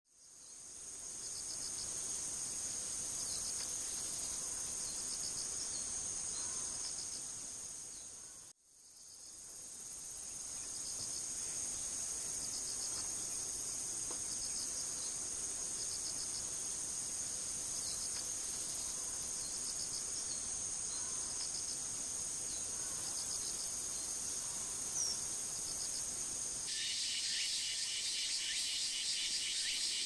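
Chorus of autumn insects: a steady high-pitched trill with short pulsed chirps repeating every second or two. It fades out briefly about eight seconds in and comes back. Near the end it changes to a denser, faster pulsing chorus that reaches lower.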